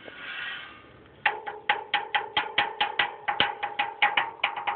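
A brief soft pitched hum, then rapid, regular clicking starting just over a second in, about five clicks a second, over a steady hum.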